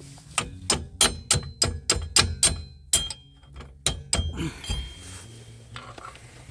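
Hammer blows on steel: a quick series of sharp metallic strikes with a ringing tone, about three a second for some three seconds, then two more a second later, knocking on a car's wheel hub assembly to free it.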